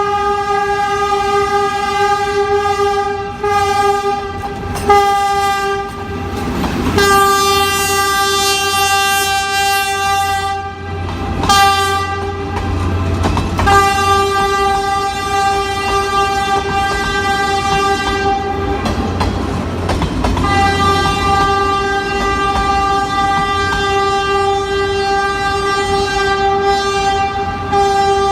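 Passenger train's horn held loud and nearly continuous as the train passes a level crossing, broken by a few short gaps. The rumble and clickety-clack of the passing train swell in the middle.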